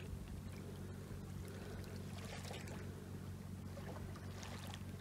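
Quiet shoreline ambience: a steady low hum with a faint wash of water, likely small waves at the beach.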